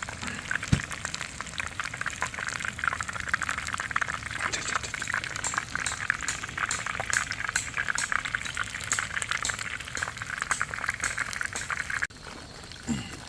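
Chicken tenderloin tempura deep-frying in hot oil: a dense, steady sizzle full of small crackles. It cuts off abruptly near the end.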